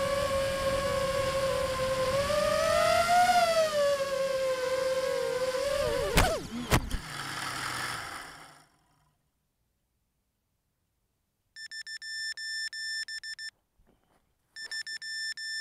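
Blade Vortex 250 Pro racing quadcopter's brushless motors whining steadily, rising in pitch about three seconds in. About six seconds in there are two sharp knocks as it touches down in the grass, and the whine falls away as the motors spin down. After a few seconds of silence come two runs of rapid, high-pitched electronic beeping.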